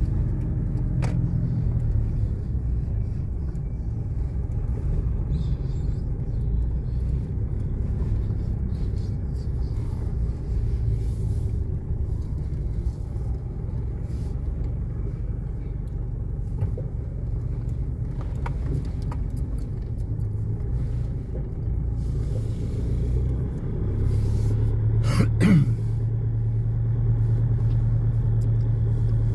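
Car interior noise while driving slowly: a steady low engine and tyre rumble on an unpaved road, with the engine hum steadier and a little louder in the last few seconds, and one brief higher sound near the end.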